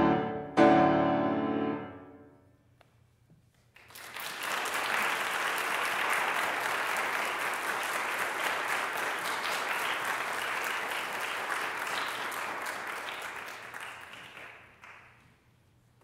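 Grand piano's closing chords struck and ringing out, dying away within about two seconds. After a brief hush, an audience applauds steadily for about ten seconds, fading out near the end.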